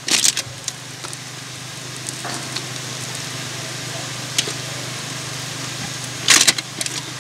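Steady sizzle from food cooking on a barbecue grill, with crackly rustles of aluminium foil and a plastic container as cheese curds are dropped by hand onto fries in an open foil pack. The crackles come just after the start and again about six seconds in, with a few small ticks between.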